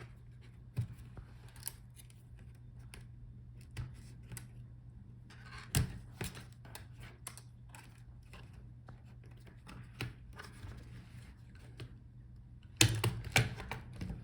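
Light clicks and scraping of hands working on a laptop's internals, pulling the display and Wi-Fi antenna cables out of their routing channels. A cluster of louder knocks comes near the end.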